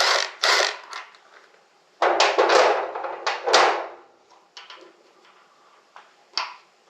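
Hand ratchet working in several quick clicking strokes, loosening the bolts of the front brake caliper on a motorcycle, then light clicks and taps of metal parts being handled.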